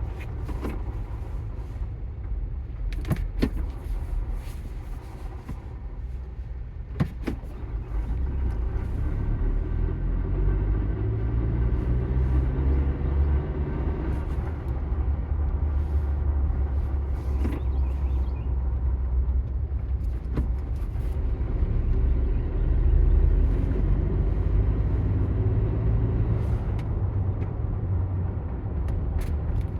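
2021 Ford Bronco's manual transmission grinding over the engine's steady idle while the vehicle stands still, with a few sharp clicks along the way. The grinding goes away when the clutch pedal is pressed, which places it in the transmission rather than the engine.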